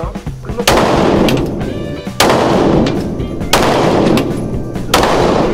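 Four pistol shots at an indoor shooting range, about one and a half seconds apart, each ringing on in the range's echo.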